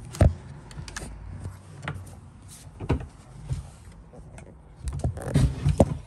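Cabinet drawers sliding shut and open, with a sharp knock just after the start, another about three seconds in, and a quick cluster of knocks about five seconds in.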